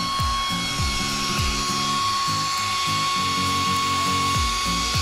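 Electric air pump running steadily, inflating an inflatable boat through a hose: a constant high whine over a rush of air.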